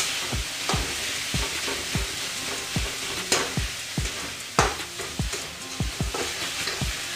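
Mawa (khoya) sizzling as it is stirred and roasted in a hot metal kadhai, with a flat metal spatula scraping and knocking against the pan. There are sharper spatula knocks about three and four and a half seconds in. Underneath runs background music with a steady, fast kick-drum beat.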